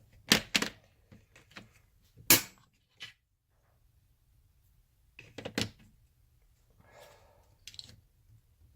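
Scattered sharp clicks and knocks of hard objects being handled, the loudest about two and a half seconds in and a short cluster around five and a half seconds, with softer rustling near the end.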